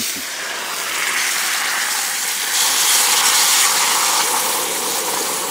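Lemongrass broth hitting a very hot stainless steel pan, boiling violently and hissing with steam. The pan was left heating on high, so the liquid flash-boils and reduces fast. The hiss swells about halfway through as more broth is poured in.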